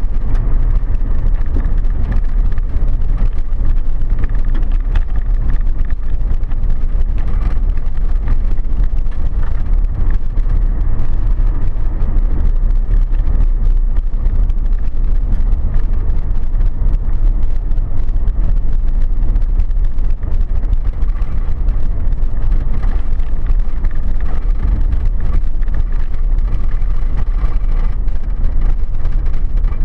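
A four-wheel drive runs steadily along a gravel dirt road, heard as a dense low rumble of engine, tyres and wind, with scattered small ticks.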